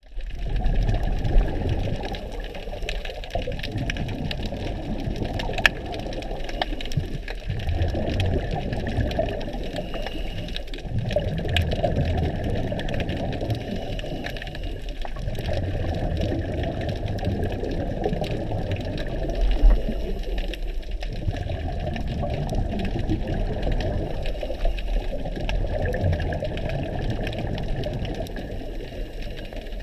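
Scuba diver breathing through a regulator underwater: a low rumble of exhaled bubbles, broken by a short pause about every four seconds as each breath cycles. A few sharp knocks stand out.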